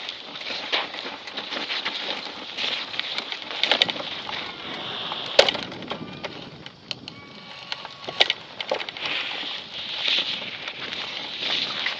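Wind rushing over the camera microphone on a hang glider in flight: a steady hiss broken by irregular crackles and clicks, with one sharp click about five seconds in.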